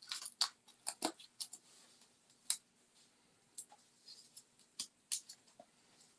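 Short, irregular paper clicks and crackles from handling cardstock while peeling dimensionals (foam adhesive dots) off their backing sheet and pressing them onto a paper tag. The sounds cluster in the first second and a half, then come singly.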